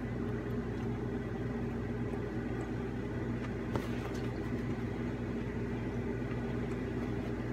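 Steady electrical machine hum, like a fan or appliance running in a small room, with one faint click about four seconds in.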